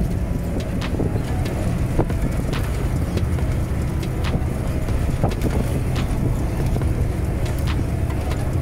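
Bus travelling at speed: a steady low engine and road rumble with wind noise on the microphone and a few light rattles.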